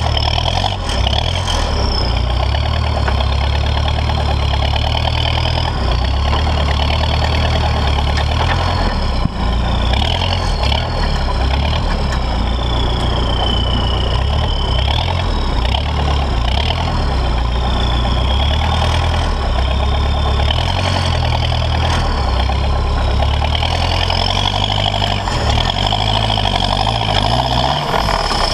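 Toyota Land Cruiser J40's 3.0 turbo-diesel engine running at low revs as the truck drives off-road: a steady low engine drone, with a thin high whistle that wavers up and down in pitch.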